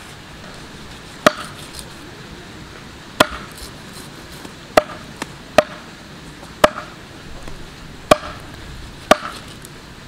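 Cleaver chopping giant stingray meat on a wooden chopping block: seven sharp chops and one lighter one, spaced irregularly a second or two apart.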